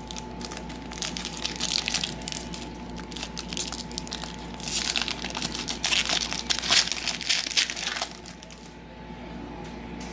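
Foil trading-card pack wrapper being torn open and crinkled, in crackling bursts for about eight seconds, loudest near the middle, then stopping.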